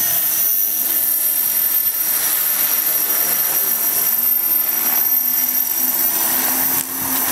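KDS 450SV electric RC helicopter in flight, its motor and rotors giving a steady high whine, with wind noise on the microphone.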